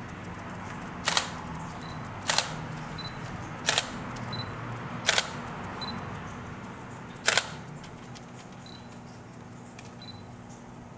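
Camera shutter firing five times, a second or two apart, each a quick double click. Faint short high beeps come between the shots.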